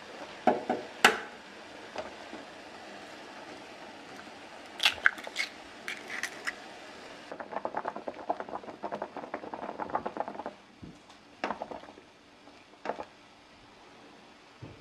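Metal ladle clinking and knocking against a pot of boiling water, in a few sharp strikes near the start, around five to six seconds in and near the end. In the middle a few seconds of rapid bubbling and crackling from the water at a rolling boil while an egg poaches in the ladle.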